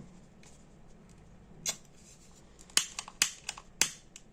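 Sharp clicks of a blue utility lighter's trigger being pressed to spark it: one click about one and a half seconds in, then a quick run of about five more over the last second and a half.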